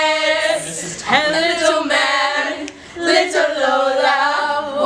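A group of young women singing together unaccompanied, in long held notes.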